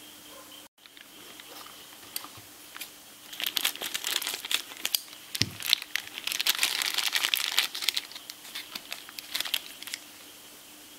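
Thin clear plastic bag crinkling as it is handled and opened to take out a plug adapter. The crackle is irregular, starts about three seconds in, is loudest around the middle and dies away near the end.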